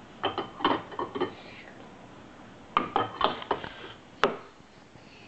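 Toy dishes and utensils knocking and clattering against a plastic toy kitchen, in two short bursts of knocks with a single sharp click about four seconds in.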